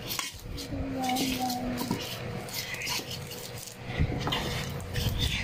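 Metal fork scraping and tapping against a bowl while stirring dry pancake mix with crushed chocolate sandwich cookies. A brief held voice sound comes about a second in.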